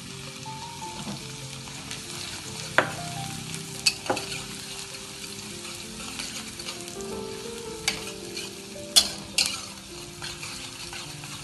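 Chopped shallots and garlic sizzling in hot oil in a steel wok while being stir-fried with a metal spatula, which scrapes and knocks against the wok with a handful of sharp clicks, around 3, 4, 8 and 9 seconds in.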